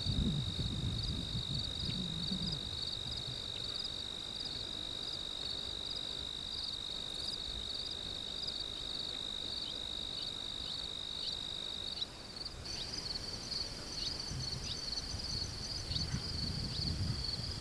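Chorus of field insects in grassland: a steady high trill under fast, rhythmic chirping. About two-thirds of the way in, the steady trill drops out and the chirping goes on. Low rumbles, like wind on the microphone, come near the start and again near the end.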